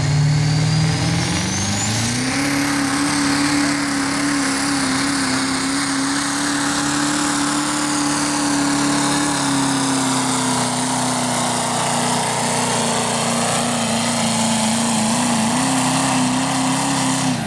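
Turbocharged diesel pickup engine at full throttle pulling a sled: the revs climb over about two seconds with a turbo whistle rising to a high pitch, then the engine holds a steady high-rpm drone under load, sagging a little and picking up again, before cutting off abruptly near the end.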